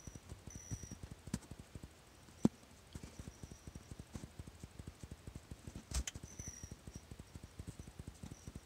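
Hummingbirds at a feeder giving short, high, thin squeaky notes, once about half a second in and again a little after six seconds. Under them runs a rapid, irregular low pattering, broken by a few sharp clicks, the loudest about two and a half seconds in and a click with a thump at about six seconds.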